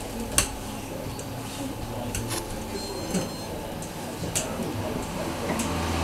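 Whirlpool Supreme Care washing machine running its demo mode: a low steady hum with scattered clicks, and a short run of faint high beeps about three seconds in.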